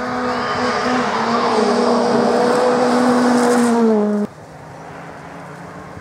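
Rally car engine held at high revs as the car approaches and passes close, growing louder with the pitch dropping slightly as it goes by, with tyres throwing up gravel. About two-thirds of the way in the sound cuts off abruptly and a fainter, more distant car engine takes over.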